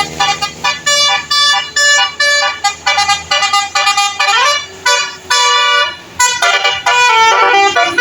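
Telolet multi-tone bus air horns playing a rapid tune of short, shifting notes, with a rising glide about four seconds in and brief pauses between phrases.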